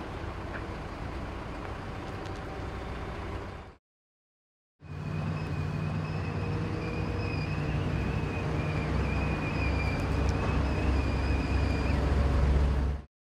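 Steady engine noise that cuts out after a few seconds. It then returns as a mobile crane's engine running under load with a steady high hydraulic whine while its telescoping boom retracts. The engine grows louder toward the end, and the whine stops about a second before the sound cuts off.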